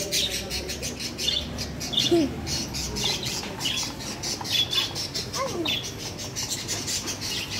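Small caged birds chirping and twittering rapidly and steadily, with a few louder squawks that slide down in pitch.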